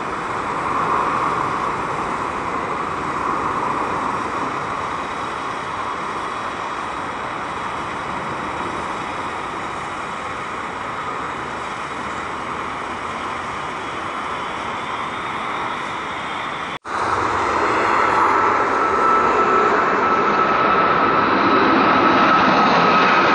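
Jet engine noise of an All Nippon Airways Boeing 777-300ER climbing out at takeoff power, its GE90 engines giving a steady, loud noise. It cuts off abruptly about two-thirds of the way in. A louder passage follows from another Boeing 777, an Air India jet passing low overhead on its climb-out, with a steady high whine that sinks slightly in pitch near the end.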